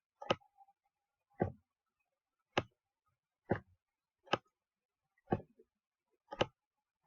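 Slow one-finger typing on a computer keyboard: single key clicks about one a second, unevenly spaced.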